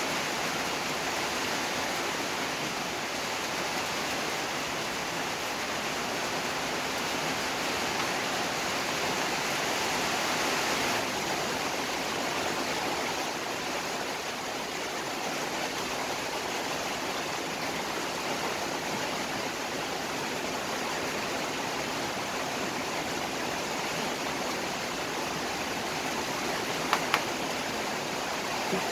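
Rosogolla (chhena balls) boiling hard in sugar syrup in a wide pan, a steady frothing, bubbling hiss. Two short clicks near the end.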